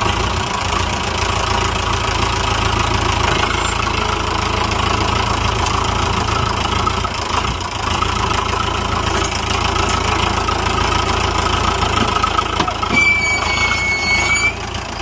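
Tractor engine running steadily under load as the rear wheels turn in deep mud and the tractor works itself free. A short high-pitched tone sounds near the end.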